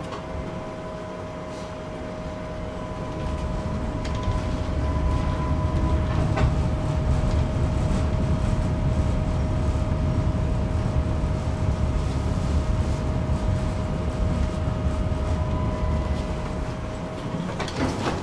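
Tram running along the rails, heard from on board: a low rumble of wheels on track that builds from about three seconds in as it picks up speed, over a steady high whine that stops near the end. A few sharp clicks stand out.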